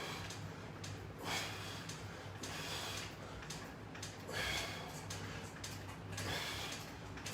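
A person breathing hard while exercising: four forceful breaths spaced about a second and a half apart, over a steady low hum.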